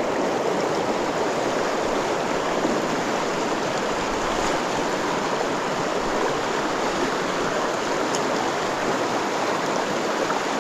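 Steady rushing of a river's flowing water, an even wash of noise with no breaks.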